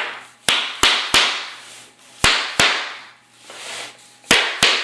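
Sharp hammer blows knocking glued tongue-and-groove engineered hardwood planks tight together, seven strikes in quick groups of three, two and two, each with a short ringing tail.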